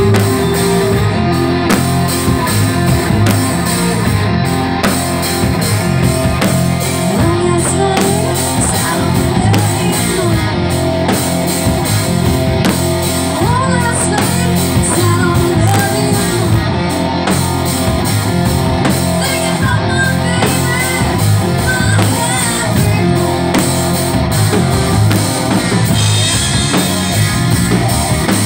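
Live rock band playing loud and without a break: electric guitar on a sunburst Les Paul-style guitar, bass and a full drum kit, with a woman singing lead.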